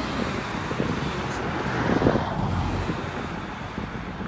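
Wind rumbling on the microphone over the hiss of passing road traffic, swelling briefly about two seconds in.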